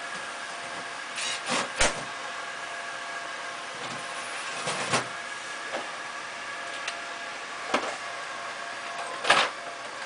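Sharp metallic knocks and clinks from tools and fittings at an air conditioner's outdoor unit. They come in small groups about a second in, around the middle, and twice near the end, the last the loudest. A steady mechanical hum with a few fixed tones runs underneath.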